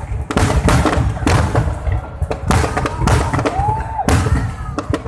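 Aerial fireworks shells bursting overhead in quick succession, with a rapid run of loud bangs and crackles over a continuous low rumble.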